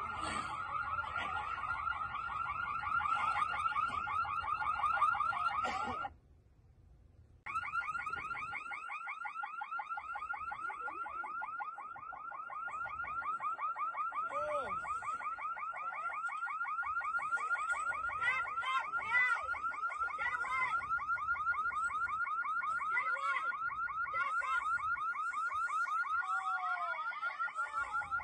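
Electronic alarm sounding continuously: a high tone pulsing rapidly and evenly, which drops out for about a second and a half about six seconds in and then carries on.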